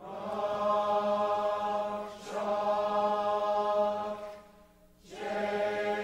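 Closing music: sustained chant-like chords over a steady low drone, held in long swells that fade briefly and return twice.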